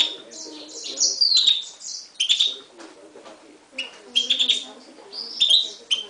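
Finch song: bursts of rapid twittering notes and short trills, including a high note that slides downward about a second in, broken by brief pauses.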